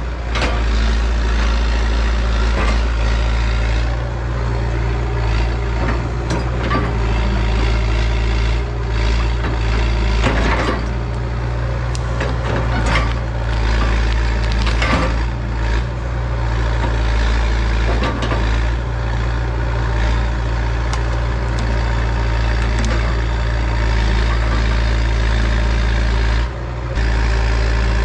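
Hitachi EX100 excavator's diesel engine running steadily under work, with scattered cracks and snaps of breaking wood as it pushes through trees and brush.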